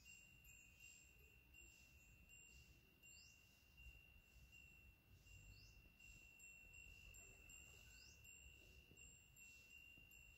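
Near silence: a faint, steady high-pitched tone, with faint chirps repeating every second or so above it.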